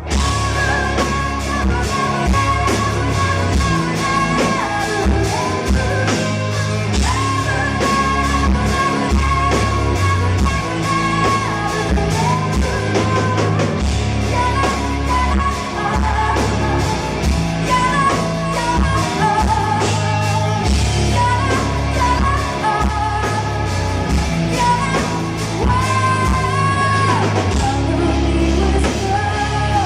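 Folk-metal band playing live, with a woman singing lead over electric guitar, bass and drums.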